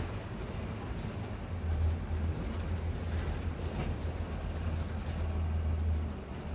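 A bus travelling, with its engine and road noise making a steady low rumble and a faint click or rattle now and then. The rumble eases slightly near the end.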